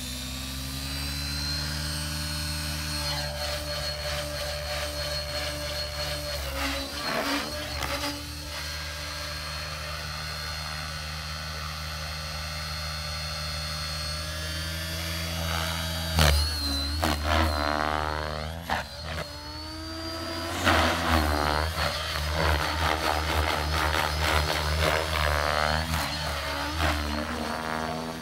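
Align T-Rex 550 radio-controlled helicopter: its motor and rotor whine rising in pitch at the start, then running steady in a hover. About halfway through it becomes louder and uneven, wavering and sweeping in pitch as the helicopter climbs and manoeuvres overhead.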